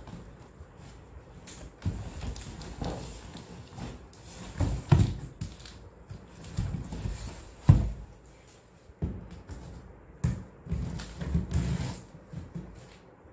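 A large corrugated cardboard shipping box being shifted and laid down on a hard floor: irregular thumps and knocks with cardboard scraping and rustling, the sharpest knock a bit past halfway. Near the end, the packing tape on top is being cut into.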